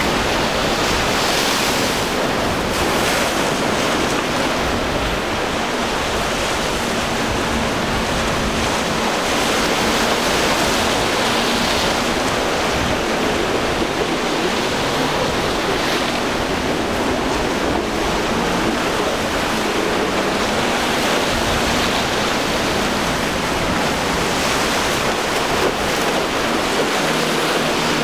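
Waves and surf washing and breaking, with wind buffeting the microphone. From about a third of the way in, a faint steady drone of the boat's twin Suzuki 300 hp outboard engines runs under the surf, dropping in pitch near the end.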